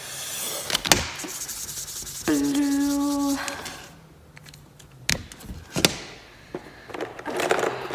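Felt-tip markers scribbling and rubbing on folded paper, with a few sharp clicks as pens are capped and set down on a wooden table. About two seconds in, a steady tone lasts about a second.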